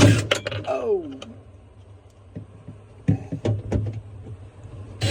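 Clicks and knocks of a plastic refrigerator freezer wall panel being handled and fitted into place, in two clusters: one at the start and one about three seconds in. A short exclaimed "Oh!" comes about a second in, over a steady low hum.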